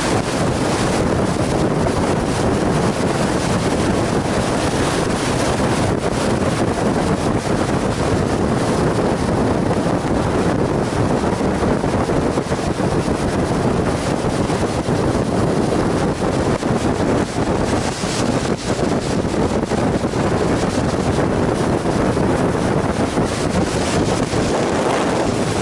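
Steady, heavy wind rush over the microphone from a 2014 Harley-Davidson Fat Boy Lo ridden at highway speed, mixed with the motorcycle's running and road noise.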